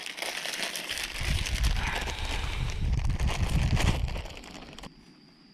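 Plastic zip-top bag crinkling and rustling as it is handled with an eel going into it, with dull knocks of handling. It stops abruptly near the end.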